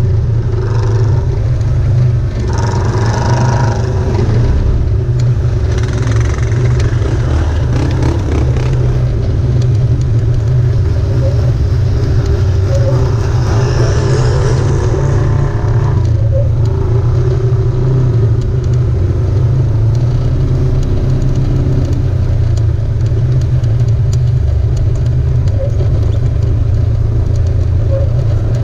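Off-road vehicle engine running with a steady low rumble, rising a little now and then.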